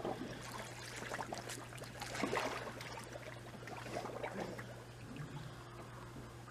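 Water lapping and trickling faintly in an above-ground pool as a swimmer moves, over a steady low hum.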